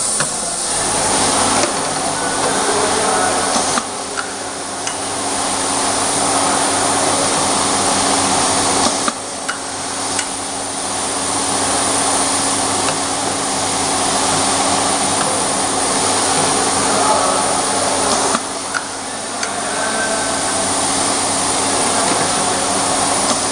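Semi-automatic flat-surface labeling machine running: a steady hum under a loud, even whirring noise, with a few sharp clicks and knocks as bottles are fed through. The noise dips briefly about four, nine and eighteen seconds in.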